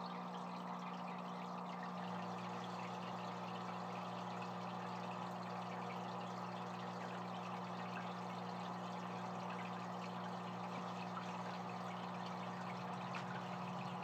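Aquarium filters trickling and bubbling water, with a steady electrical hum from their pumps.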